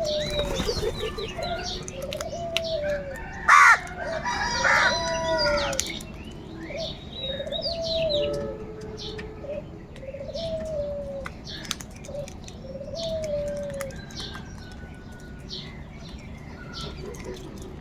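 Crows calling amid a busy mix of other bird calls, with one loud, harsh call about three and a half seconds in.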